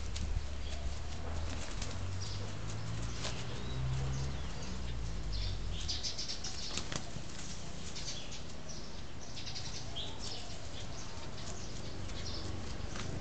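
A silkie chicken flapping its wings and a dog scuffling through dry leaf litter as they play: a run of short, crackly rustling bursts, irregularly spaced.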